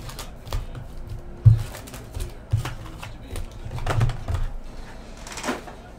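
Foil-wrapped trading card packs being pulled from a cardboard hobby box and stacked on a table: irregular crinkles and clicks with soft low thumps, the biggest bump about one and a half seconds in.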